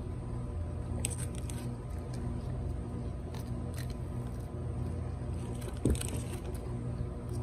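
Eating sounds: chewing and a straw sip, with short rustles of a paper sandwich wrapper, and one sharp knock about six seconds in as an arm reaches toward the phone.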